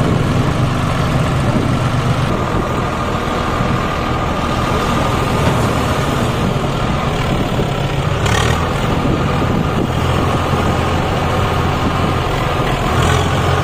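Tractor diesel engines running steadily under the strain of pulling a stuck Swaraj 744 and its loaded trolley out of mud, with a John Deere 5104 close by. A short rise in noise comes about eight seconds in, and a smaller one near the end.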